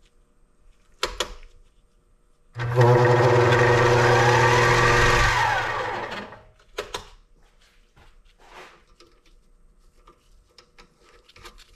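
Vevor 7x14 mini lathe's motor and gear train running for about three seconds and then winding down, in reverse to bring the carriage back along the leadscrew after a threading pass. A click about a second in and another just after it stops.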